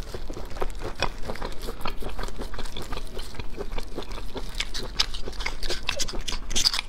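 Close-miked wet chewing and mouth smacks while eating steamed abalone, mixed with a spoon scraping and prying the abalone flesh from its shell. It comes as a dense, uneven run of small clicks.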